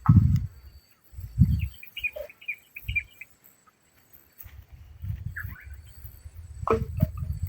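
A small bird chirping: a quick run of short high notes about two to three seconds in, and another brief call later. Low thumps and a low rumble run underneath.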